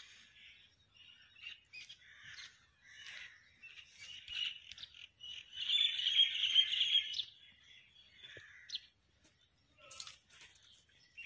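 Small birds chirping repeatedly, with a louder, busier run of chirping about halfway through.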